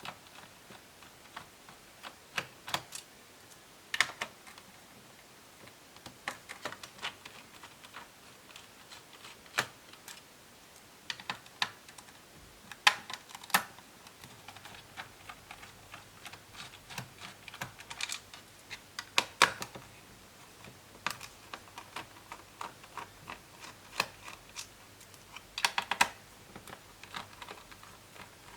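Irregular clicks and taps of small tools and plastic and metal laptop parts being handled during disassembly, some in quick clusters, the loudest run about a second before the end.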